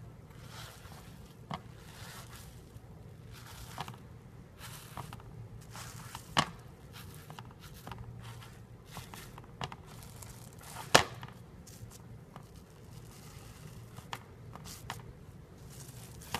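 Sponge slime being squeezed and poked, giving irregular crackles and pops, with two louder pops about six and eleven seconds in.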